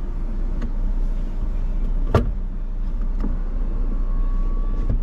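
Car idling, heard from inside the cabin: a steady low rumble, with a few sharp clicks, the loudest about two seconds in, and a faint steady whine in the last second.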